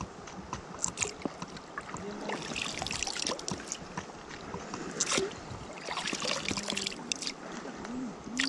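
River water rushing over a shallow, fast current, with uneven surges of splashing.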